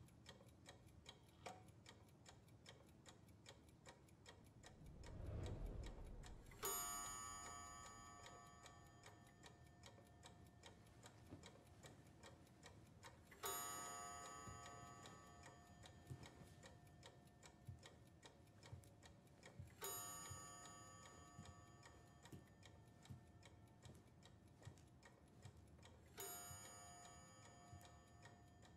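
Faint clock ticking steadily, with four ringing struck notes about six and a half seconds apart, each fading slowly, and a low swell just before the first.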